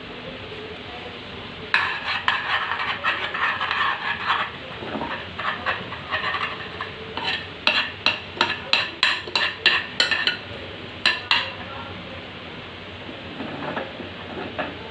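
A spoon stirring and scraping in a pan of jaggery, ghee and water on the stove: a dense run of scraping a couple of seconds in, then quick separate strokes, about three a second, in the middle.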